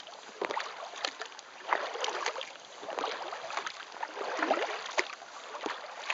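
Kayak paddle strokes: the paddle blades dipping into and pulling through the water, with small splashes and drips about once a second.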